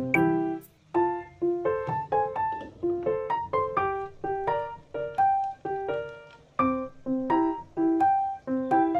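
Background piano music: a gentle melody of single struck notes, about two or three a second, each fading out before the next.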